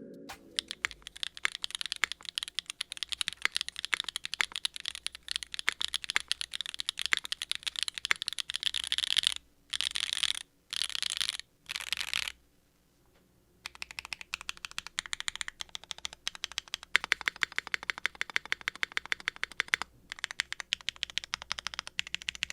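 Nuxros Kraze 65 mechanical keyboard being typed on fast, a rapid run of keystroke clicks. About halfway the typing breaks into three short dense bursts and stops for a moment, then resumes.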